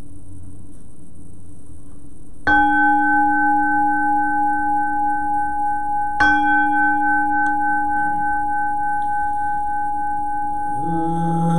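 Buddhist temple bell struck twice with a mallet, about four seconds apart, each stroke ringing on with a steady low tone and two higher overtones. Near the end a man's voice starts chanting the sutra over the still-ringing bell.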